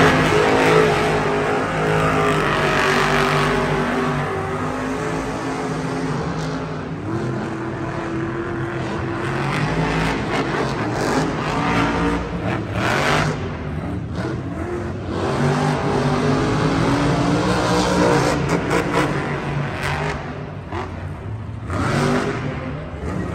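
Monster trucks' supercharged V8 engines racing, revving hard and easing off again and again, the pitch rising and falling.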